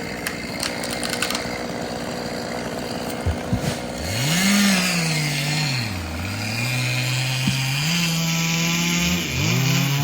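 Two-stroke chainsaw running steadily, then revved up about four seconds in and cutting into wood, its pitch sagging under the load and climbing back several times.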